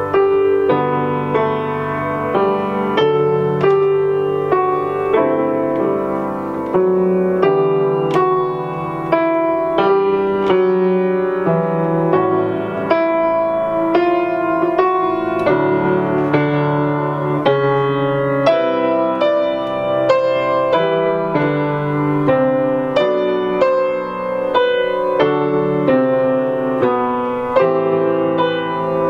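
Grand piano played solo: a continuous piece of sustained chords with a melody line, notes struck at an even pace.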